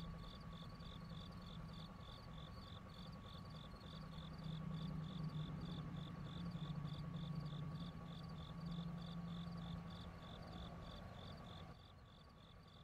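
Crickets chirping in an even rhythm, about three chirps a second, over a faint low hum, as a night ambience; it stops about a second before the end.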